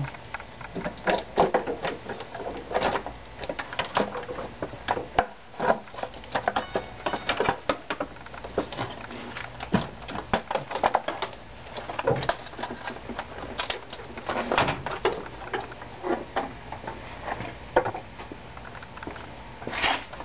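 Irregular clicks, clinks and knocks of hand tools and metal engine parts as the valve cover and its related components come off an inline-six engine.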